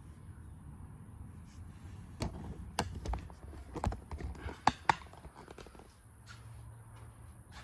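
A run of sharp clicks and knocks over about three seconds, the two loudest close together near the middle, over a low steady hum.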